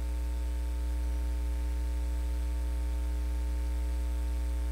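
Steady electrical mains hum with a ladder of higher overtones over a faint even hiss, picked up in the recording chain.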